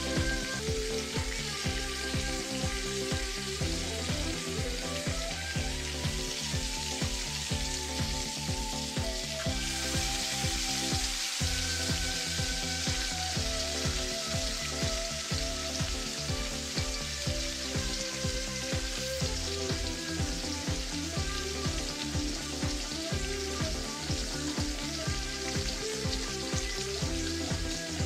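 Vegetable pakora fritters deep-frying in hot oil, a steady sizzle that grows louder about a third of the way in as more fritters fill the oil. Background music with a steady beat plays underneath.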